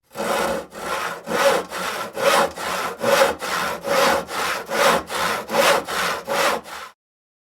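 Handsaw cutting through wood in steady back-and-forth strokes, a little over two strokes a second, with every other stroke louder and faintly ringing. The sawing stops abruptly near the end.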